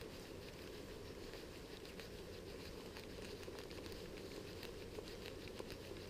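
Faint, irregular patter of small clicks and crackles over a low steady hiss: water sounds around a small boat on calm water.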